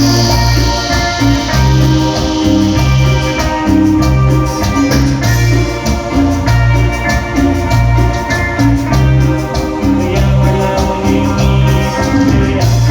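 Latin dance music, an instrumental passage without singing: a steady repeating bass line under melody lines and an even percussion beat.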